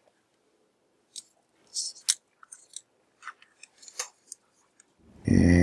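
Small sharp clicks and rattles of test-lead hook clips and a potentiometer being handled as the clips are hooked onto the pot's pins: a scatter of light ticks over a few seconds. A man's voice begins a drawn-out word near the end.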